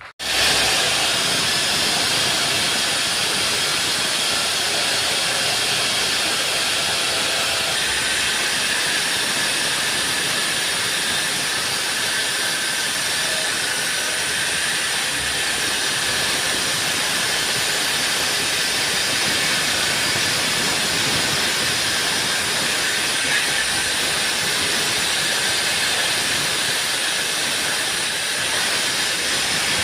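Concrete-cutting machine running steadily through a cut, a loud, even, hissing grind that switches in abruptly right at the start and holds without change.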